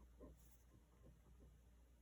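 Faint pen scratching on paper in short strokes, a few a second, over a quiet room hum.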